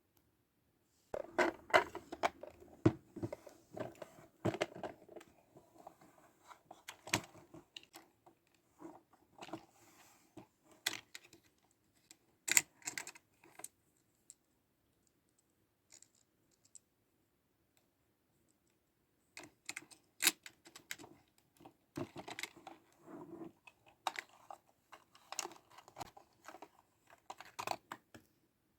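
Small plastic clicks, taps and rattles from handling a Licca-chan miniature toy refrigerator and its pieces, in uneven clusters with a quiet pause of a few seconds in the middle.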